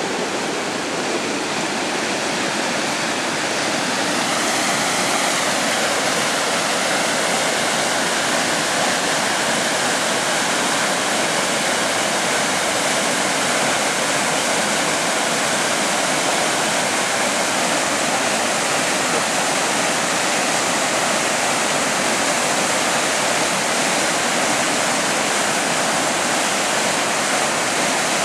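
Swollen river in flood pouring over a small rocky waterfall: a steady rush of churning water, getting louder and brighter about four seconds in.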